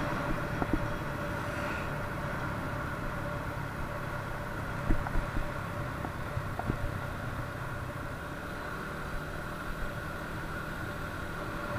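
Moped engine running steadily at cruising speed, a low drone with a faint steady whine over road and wind noise, and a few light knocks about halfway through.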